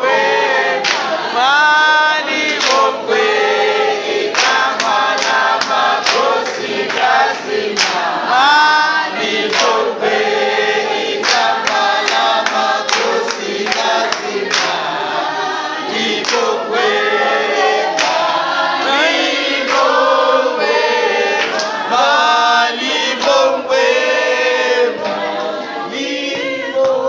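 A group of people singing a song together without instruments, with hand clapping through it.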